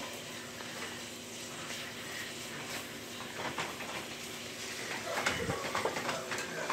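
Sausage pieces sizzling in a frying pan, with scattered light clicks and scrapes of a utensil against the pan as the meat is turned, busier near the end.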